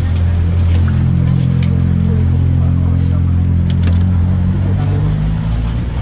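A motor vehicle's engine running close by: a loud, steady low hum that shifts slightly in pitch.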